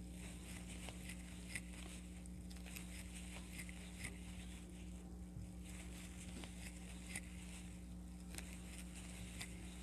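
Faint rustling and light ticks of a crochet hook drawing yarn through stitches, one stitch in each, over a steady low electrical hum.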